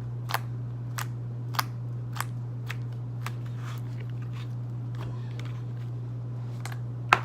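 Purple slime being pressed and poked, giving small sharp clicking pops about every half second to second, with a louder pop near the end, over a steady low hum.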